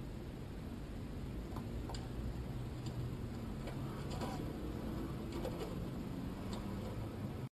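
Steady low rumble of a car's engine and road noise heard inside the cabin, with a few faint, irregular small ticks and clicks. The sound cuts off abruptly near the end.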